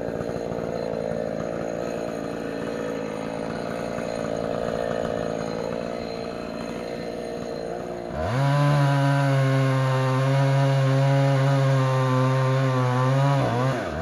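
Chainsaw engine running at a low, steady idle, then opened up to full throttle about eight seconds in. It holds a loud, steady note for about five seconds while cutting into the base of a tall dead tree trunk, then drops back near the end.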